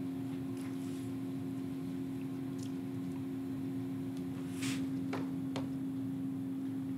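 Steady low electrical hum of the room's sound system, with a few faint clicks and taps from handling the laptop and lectern, the clearest about four and a half to five and a half seconds in.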